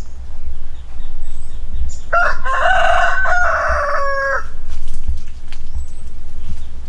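A rooster crowing once, a single crow of about two seconds starting about two seconds in, over a steady low rumble.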